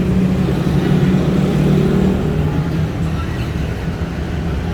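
A motor vehicle engine running steadily, a low hum with some street noise over it.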